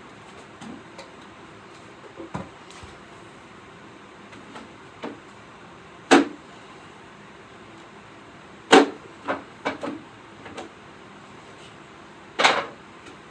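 Wooden end-table parts knocking and clacking as they are handled and pushed together during assembly: a handful of short, sharp knocks, the loudest about six, nine and twelve seconds in, over a steady low hiss.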